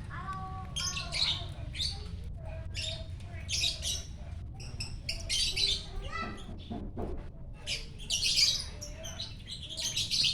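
Lovebird chattering in repeated shrill, high-pitched bursts every second or so: the 'gacor' song of a lively bird.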